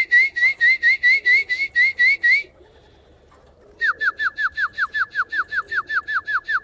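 Pigeon feed whistle blown in two runs of quick short notes, about five a second: first a run of rising chirps that stops about two and a half seconds in, then after a short pause a longer run of lower, falling notes. It is the feed call used to bring Birmingham Roller pigeons down to the loft.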